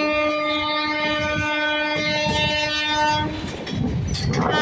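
A train horn holds one long, steady blast that cuts off a little over three seconds in, and a second blast starts right at the end. Under it the coach's wheels clatter over the rail joints, heard from inside a moving passenger coach.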